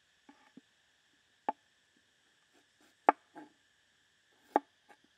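A knife cutting through a ginger root and striking a wooden cutting board: three sharp knocks about a second and a half apart, with a few lighter taps between them, over a steady high-pitched background hiss.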